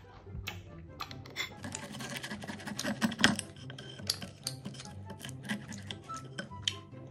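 Table knife and fork cutting a crisp waffle on a ceramic plate: a run of short scrapes and clicks of metal on the plate and through the crust, the loudest about three seconds in.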